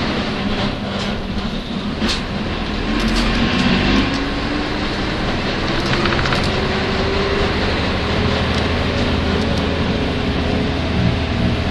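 Nissan Diesel UA city bus (U-UA440NAN) heard from inside, its diesel engine running as the bus pulls away and accelerates, with a whine rising in pitch over several seconds and a few sharp clicks early on. This bus runs with an abnormal noise, which the uploader links to its vehicle inspection falling due.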